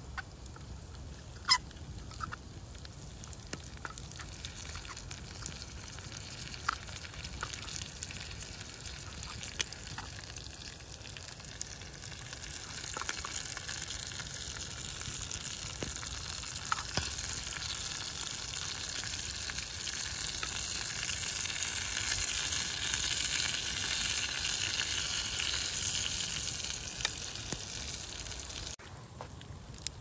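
Sizzling hiss of cooking over a campfire, swelling over about ten seconds and then cutting off suddenly near the end, with sharp crackles of burning wood throughout, the loudest about a second and a half in.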